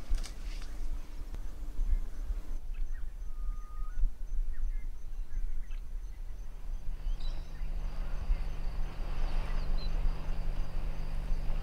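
Outdoor bush ambience: a steady low rumble with scattered bird calls, including a short level whistle about three and a half seconds in.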